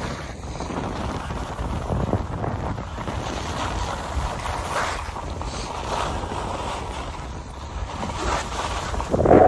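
Wind rushing over the microphone and skis hissing and scraping across packed snow during a downhill run, with a few swells as the skier turns and a brief louder scrape near the end.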